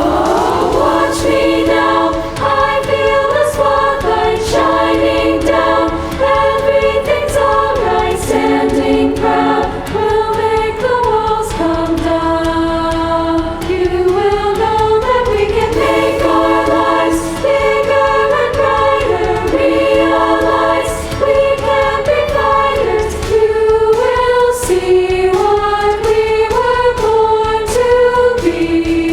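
A girls' choir singing in harmony over an accompaniment with a steady beat.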